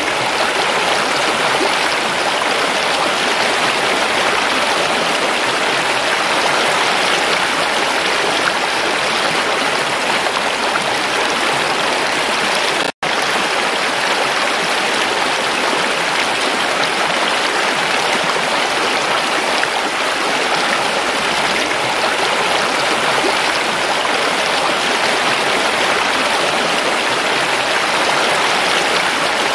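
Shallow rocky stream running over stones and small cascades: a steady rush of water that cuts out for a split second about halfway through.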